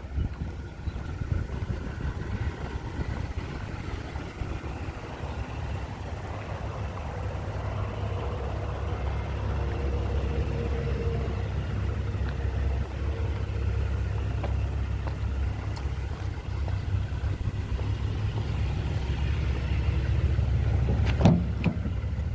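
2020 Toyota Tacoma's 3.5-litre V6 idling steadily, a low even rumble, with a single sharp click near the end.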